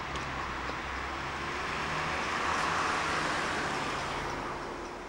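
Road traffic noise: a steady hum that swells as a vehicle passes, loudest about two to three seconds in, then fades.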